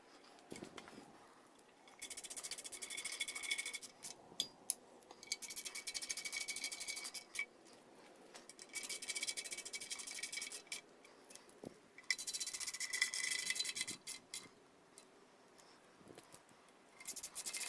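Ratchet wrench clicking in several short runs of a second or two each, with pauses between, as bolts are run down on the engine.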